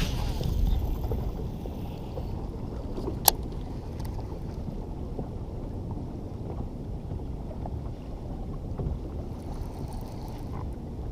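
Steady low rumble of wind on the microphone and river water around a kayak, with one sharp knock about three seconds in.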